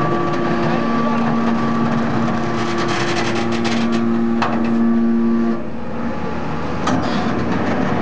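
Y81F-3150 hydraulic metal scrap baler running, its hydraulic power unit giving a steady hum, with a run of sharp clicks in the middle. About five and a half seconds in, the hum drops off and the sound gets quieter.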